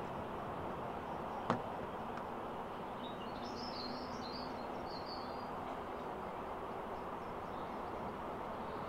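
Steady, distant noise of a Boeing 747-400's jet engines as the airliner rolls out after landing. A bird chirps in a short run of calls from about three to five and a half seconds in, and there is a single click about one and a half seconds in.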